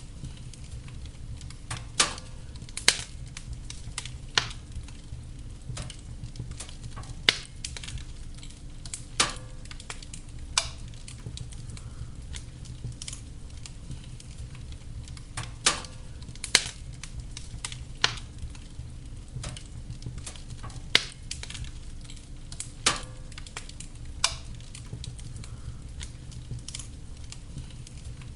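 Wood fire burning in a fireplace: a steady low rumble with sharp crackles and pops at irregular intervals, about a dozen of them.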